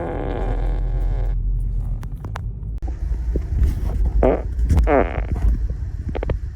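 Farts: a long pitched fart lasting about a second and a half at the start, then two shorter pitched ones about two-thirds of the way through, over a steady low rumble.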